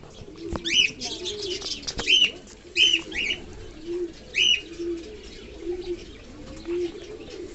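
Fancy pigeons cooing in a steady run of short low notes. Several loud, high chirps come in the first half, and there are two sharp clicks.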